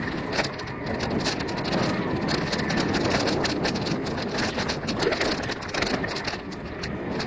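Mountain bike ridden fast along a dirt forest singletrack: a steady rush of tyre and riding noise, with many small clicks and rattles as the bike and its mounted camera jolt over bumps.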